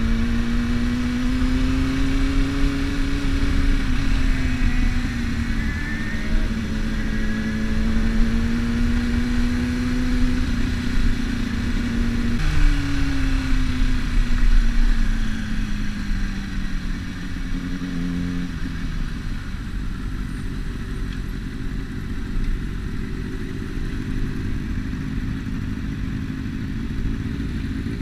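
Sport motorcycle engine running under way, with wind rushing over the microphone. About halfway through, the engine note jumps up and then falls steadily as the bike slows. In the last third it drops to a low idle.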